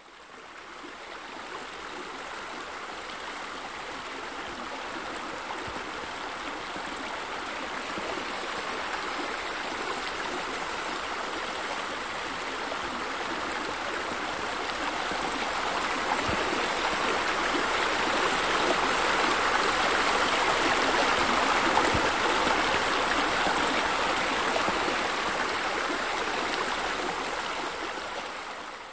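Running water flowing steadily, swelling louder past the middle and fading out at the end.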